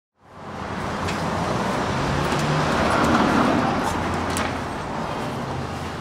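Steady road traffic noise, a rush that swells around the middle as if a vehicle passes and then eases, over a low steady hum.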